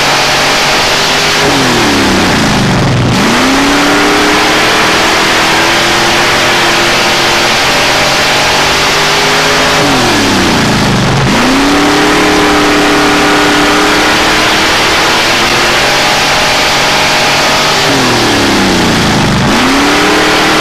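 Street stock race car's engine at racing speed on a dirt oval, heard from inside the cockpit. It holds high revs, and three times, about 8 s apart, the pitch drops sharply as the driver lifts off for a turn, then climbs back as he gets back on the throttle.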